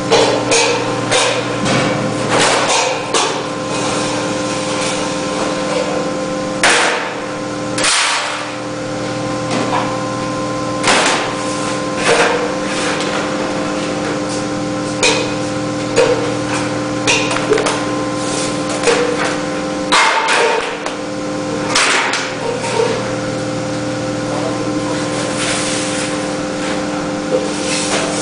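Sheet-metal V-cutting machine running with a steady hum, over which come many sharp metallic clicks and knocks and a few longer noisy bursts, the loudest about seven and twenty seconds in.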